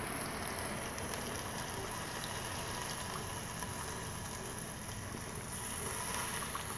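Ribeye steak sizzling in the hot Ninja Foodi after air crisping at 400 degrees, a steady hiss with faint crackle.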